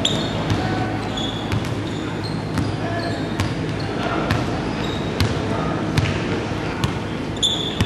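Basketball dribbling on a hardwood gym floor, with irregular bounces and short sneaker squeaks over the general noise of a busy gym.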